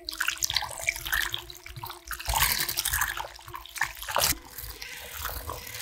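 Electric hand mixer switched on and whipping cream mixed with chocolate ganache in a glass bowl. The motor whines steadily while the beaters splash through the still-liquid cream, and the motor's pitch changes about four seconds in.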